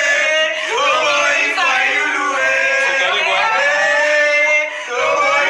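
A group of voices chanting protest slogans together, loud and continuous with a brief dip near the end, heard thin with little bass as if through a phone recording.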